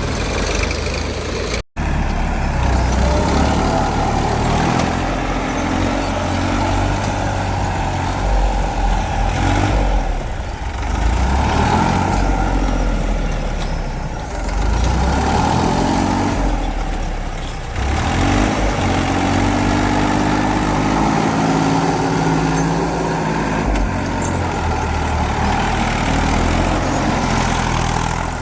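Heavy diesel engine working under load, revving up and down so that its pitch rises and falls again and again, with a brief break in the sound about two seconds in.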